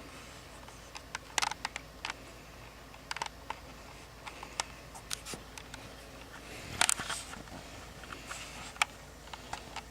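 Irregular small clicks and taps close to the microphone, in short clusters, the loudest about seven seconds in, over a steady low hiss. No snoring is heard.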